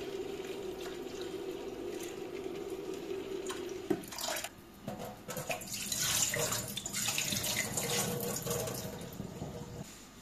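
Water running from a kitchen tap, steady at first, then splashing louder from about four seconds in, with a few light clatters, before dying away near the end; this is typical of filling a metal saucepan at the sink.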